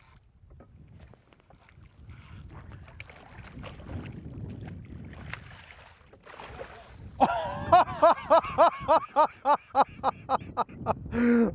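Water splashing as a large walleye thrashes in a landing net at the side of the boat, over wind and water noise. Then, about seven seconds in, a man laughs loudly in a quick run of ha-ha-ha pulses.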